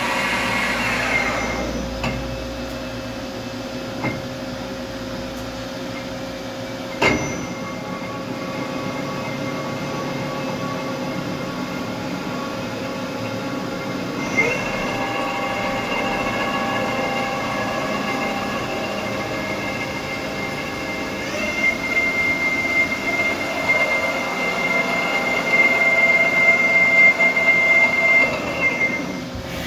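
Doosan Puma 500 CNC turning center running under power: a steady machine whine, broken by a few clicks and one sharp knock about a quarter of the way in. About halfway through, a louder, higher-pitched whine starts; it stops shortly before the end.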